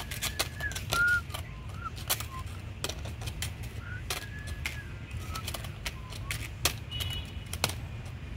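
Dry leaf crackling and rustling in irregular sharp clicks as it is waved and batted at in play. Short bird chirps come now and then, with a steady low rumble underneath.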